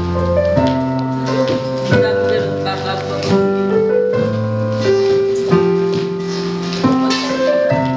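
Casio electronic keyboard playing slow, sustained chords that change about every second or so.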